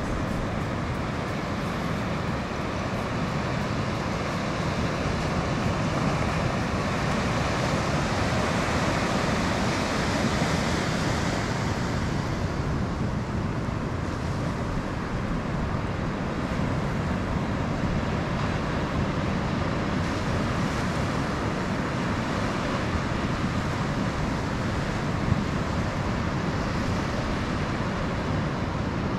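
Steady rush of surf breaking on the beach, with wind on the microphone adding a low rumble. The hiss swells louder for several seconds about a third of the way through, as a wave breaks.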